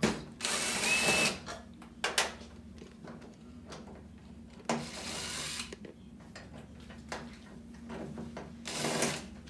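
Screws being taken out of a TV's wall-mount bracket with a power driver, run in three short bursts of about a second each, with clicks and knocks of handling the bracket and screws between them.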